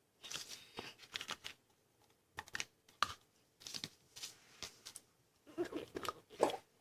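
Light, irregular clicks, taps and rustles of small objects being handled by hand, a little busier near the end.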